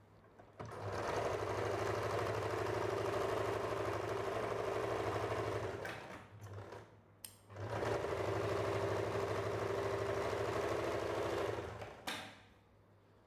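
Electric domestic sewing machine stitching fabric in two steady runs of about five and four seconds, with a short stop between them, then stopping. A short knock follows just after it stops.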